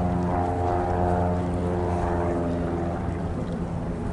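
A steady engine drone with a stack of even tones over a low rumble, slowly fading.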